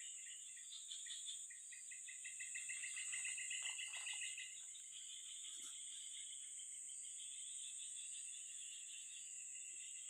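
Insects, crickets among them, chirring in chorus: a steady high-pitched drone throughout, with a rapid pulsing trill that swells during the first four seconds and then settles into a softer, steady chirring.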